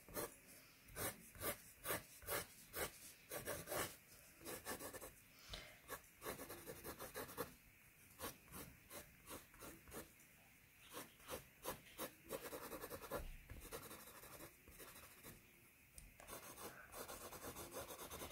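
Corner of a plastic set square scratching lines into a thick layer of oil pastel on sugar paper: many short, faint scratching strokes in quick, irregular runs.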